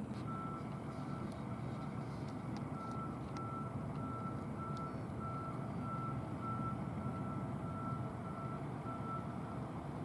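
Vehicle reversing alarm beeping at an even pace, a little under two single-pitch beeps a second, over a steady low engine rumble.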